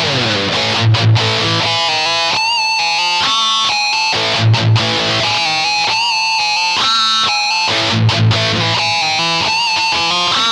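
Ibanez GIO GRG121DX electric guitar playing a melodic lead line. It opens with a slide down in pitch, followed by single notes, some held with a wavering vibrato.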